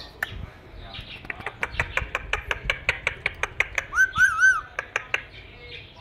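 Indian ringneck parakeet making a fast run of short clicking chirps, about five a second, with a brief warbling whistle about four seconds in.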